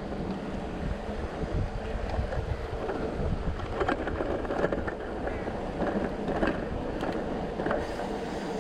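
Wind buffeting the microphone, a steady low rumble, with scattered short clicks and knocks.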